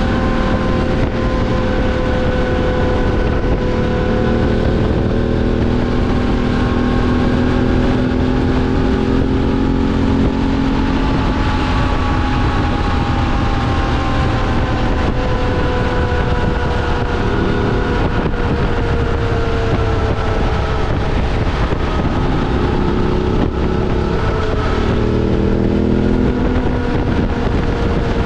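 BMW F 850 GS Adventure's parallel-twin engine running under way, its pitch drifting slowly down and up, with heavy wind noise on the microphone. The engine note changes briefly near the end.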